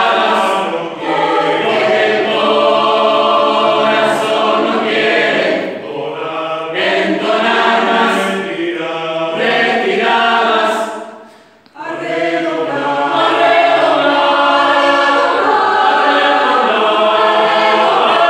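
Mixed choir of men's and women's voices singing unaccompanied in harmony, with sustained chords and audible sibilant consonants; the voices drop away briefly for a breath about two thirds of the way through, then come back in together.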